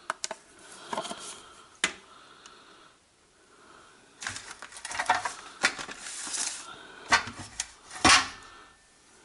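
Aluminum track-lighting extrusion lengths clattering and knocking as they are handled and set on a digital scale. A few sharp knocks come first, then a burst of rattling in the middle, with the loudest knock near the end.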